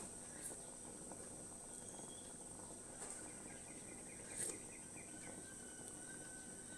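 Faint background of a steady high insect drone, like crickets. Two soft clicks sound over it, the louder about four and a half seconds in.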